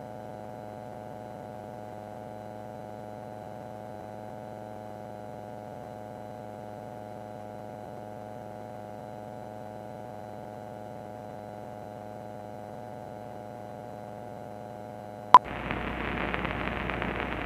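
Steady hum made of many even tones, heard through the aircraft's intercom audio feed. About fifteen seconds in comes a sharp click as the radio is switched over, followed by a hiss of radio static.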